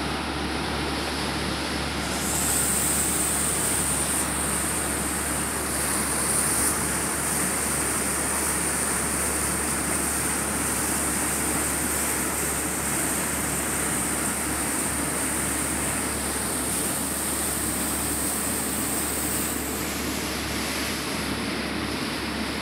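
A motor yacht's engines running underway: a steady low hum under the rush of its churning wake water. A steady high hiss joins about two seconds in and drops away a few seconds before the end.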